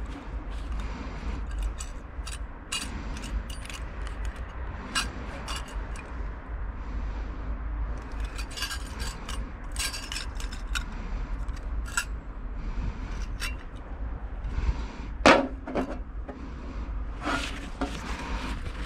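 Metal camping gear and cookware being handled: scattered light clinks, knocks and scrapes, with one louder knock about fifteen seconds in.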